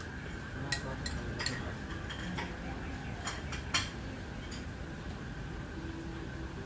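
Cutlery and tableware clinking at a breakfast table: a spoon against a ceramic bowl and plates, a handful of sharp, irregular clinks with the loudest just past the middle, over a steady background hum.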